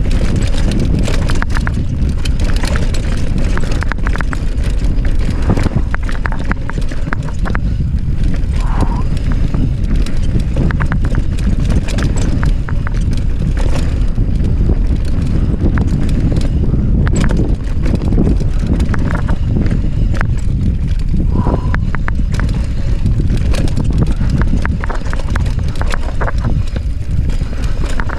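Mountain bike riding down a rough trail. Wind on the microphone and the tyres on dirt and rock make a steady rumble, and the chain and frame clatter with dense, irregular knocks over the bumps.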